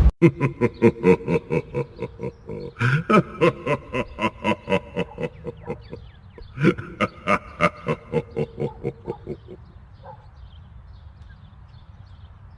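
A pig grunting in a rapid, even series, about four grunts a second, fading out after about nine seconds.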